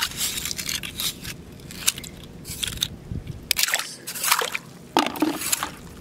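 Sea snail shells clicking and scraping as they are picked off a rock with metal tongs and gathered in the hand, with water sloshing in the shallow tide pool. Irregular sharp clicks come throughout.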